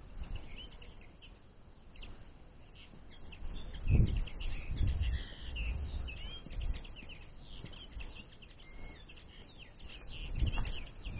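Common linnets twittering in quick, busy chirps. Low thuds sound at about 4, 5 and 10.5 seconds in.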